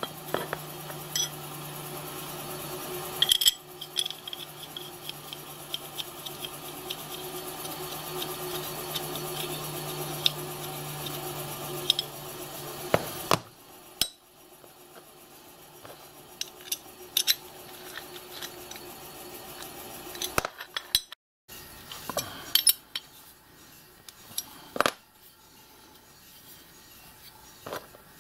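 Machined metal adaptor plate and ring being handled and fitted together with hex keys and cap screws: scattered clinks, taps and rubbing of metal parts. A low steady hum runs underneath for the first half and cuts off suddenly about halfway.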